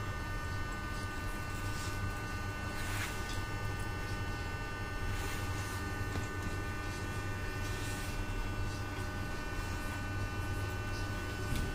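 Steady electrical hum with a set of constant high whining tones from a metro car's onboard equipment, heard inside the car as it stands at a station. A few faint rustles come and go.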